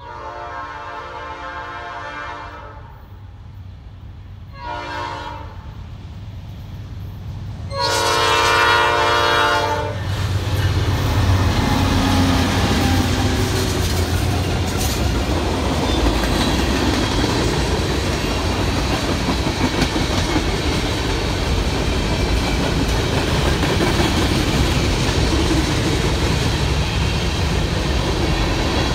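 Norfolk Southern freight train's lead locomotive, a GE C44-9W, sounds its horn for the grade crossing: a long blast, a short one, then a long one. It then passes close by, its diesel locomotives working, followed by freight cars rumbling and clicking over the rail joints.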